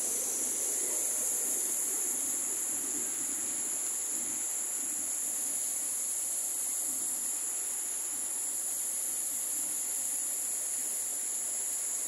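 A steady, high-pitched insect chorus that does not let up, over the even rush of a small waterfall flowing over rock.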